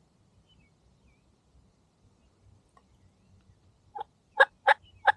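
Turkey calls: after about four seconds of quiet, a run of five short, sharp, loud notes about a third of a second apart.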